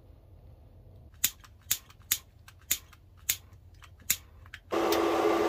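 A handheld tool clicks sharply about seven times at uneven gaps. Near the end it starts running with a loud, steady hiss and hum.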